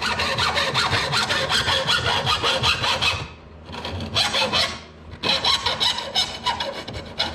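Hacksaw cutting through the steel end of a spin-on fuel filter clamped in a vise: a fast, rasping metal-on-metal scrape, broken by two short pauses.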